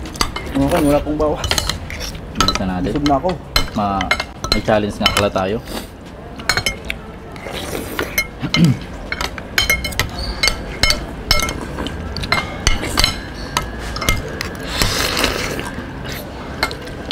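Metal forks and spoons clinking and scraping against ceramic plates as noodles are eaten, in many short irregular clicks.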